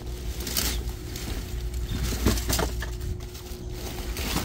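A vehicle engine running with a steady low hum and a faint steady tone, with several short knocks and clicks scattered over it.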